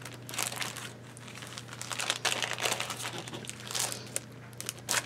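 Clear plastic zip-top bags and paper packets crinkling and rustling as they are handled, in uneven rustles throughout.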